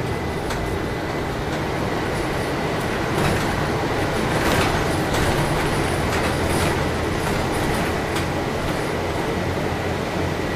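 Cabin noise of a moving city bus on a wet street: steady engine and tyre noise, with scattered clicks and knocks from the body.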